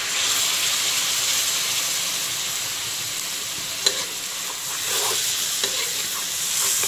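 Water poured into a hot kadhai of frying taro and masala, sizzling and hissing loudly as it hits the pan and the food is stirred. A sharp knock sounds about four seconds in.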